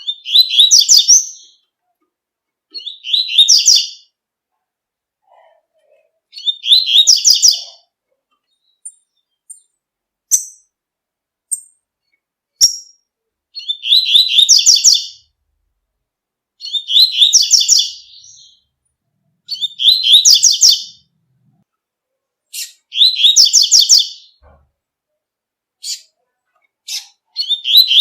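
Double-collared seedeater (coleiro) singing its 'tui tui' song: about eight short, bright phrases of a second or two each, repeated every few seconds, with single thin chips in between.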